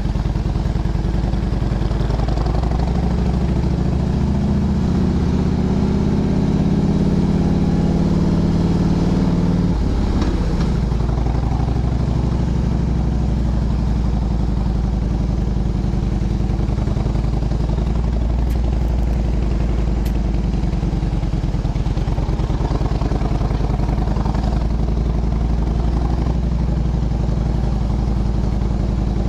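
Motorcycle engine running under way on a climb, its pitch rising for several seconds, then dropping sharply about ten seconds in and running steadily after that.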